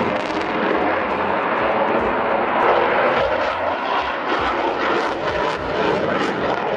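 Jet aircraft flying past overhead, its engine noise a steady loud rush that swells slightly about three seconds in.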